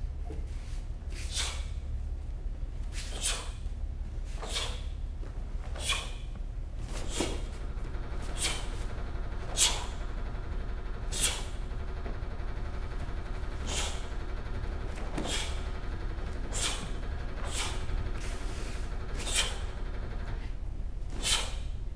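Taekwondo pattern being performed: a short, sharp swishing snap with each technique, about fifteen of them, roughly one every second or so, over a steady low hum.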